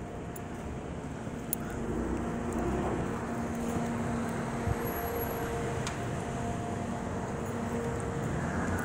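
Steady low rumble of vehicle engines and traffic, with a faint steady drone running through it.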